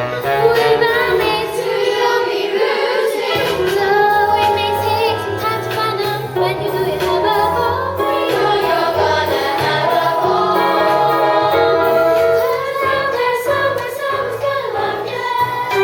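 A chorus of young voices singing a stage-musical song over instrumental accompaniment.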